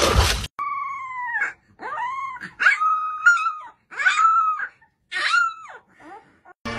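A small black puppy giving a series of little high-pitched howls ("awoos"), about five, each one rising and then falling in pitch. A brief splash of water at the very start comes from a dog drinking from a tub.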